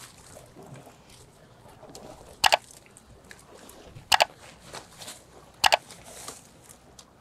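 Three mouse-click sound effects about a second and a half apart, each a sharp double click, from an on-screen subscribe-button animation, over the faint wash of small waves on the riverbank.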